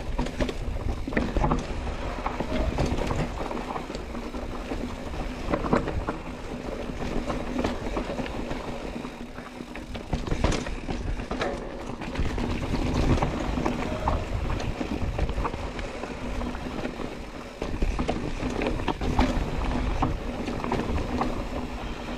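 Mountain bike rolling over rough, rocky trail: tyres crunching and the bike rattling with frequent short knocks and clacks, over a low rumble of wind on the microphone and a steady low buzz.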